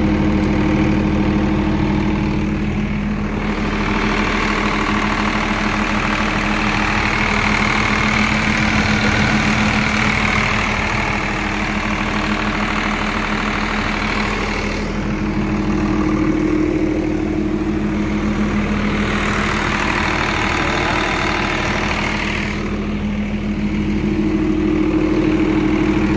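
30 kVA diesel generator set running steadily, a constant engine hum with a strong low tone. Its higher, rattly part grows louder twice, from about three seconds in for roughly twelve seconds and again for a few seconds later on.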